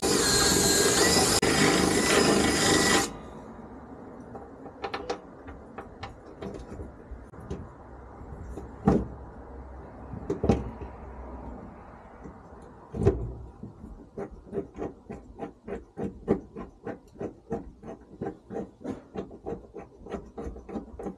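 A drill running through a hole in the truck bed's sheet metal for about three seconds, stopping suddenly. Then tool handling with a few sharp knocks, and a run of quick, even clicks at about three a second as a hand riv nut tool is worked.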